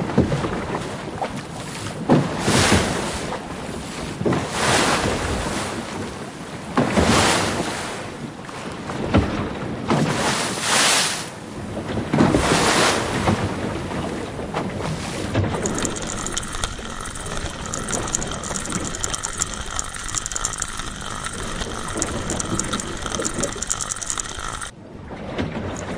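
Rushing swells of water like waves washing in, one about every two seconds. From about halfway through, a steady high chirring with fast ticking takes over, with a brief dropout near the end.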